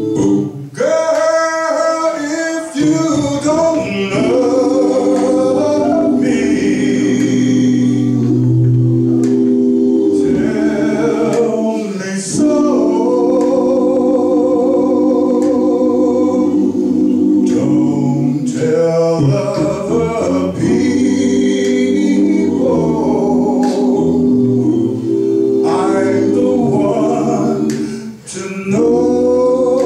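A cappella male vocal group of six singing close harmony into microphones, mostly long held chords with a low bass part and no clear lyrics, with a brief break near the end.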